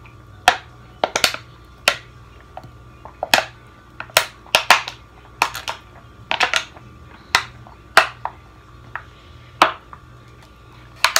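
Thin plastic water bottle crackling as it caves in while someone drinks from it: sharp, irregular crinkles, one or two a second.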